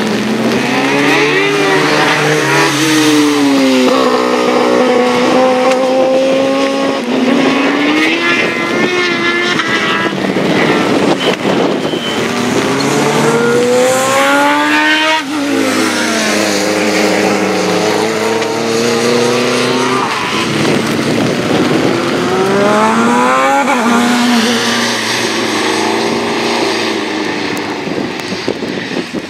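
Race car engine at high revs on a track, its pitch climbing under hard acceleration and dropping at each gear change, then falling away as it brakes and slows for corners, several times over.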